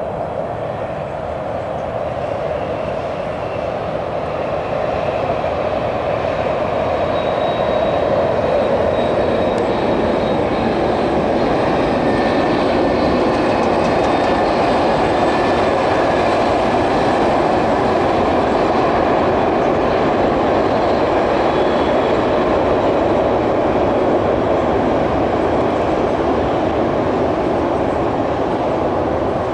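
Two DB Class 218 diesel-hydraulic locomotives hauling an Intercity train across a high steel railway bridge: a steady sound of engines and wheels on the track that swells over the first several seconds and then holds level.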